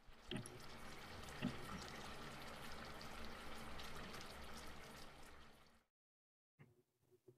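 A tiny spoon stirring a liquid coffee mixture in a miniature metal pot, with light clinks of the spoon against the pot. It cuts off abruptly near the end.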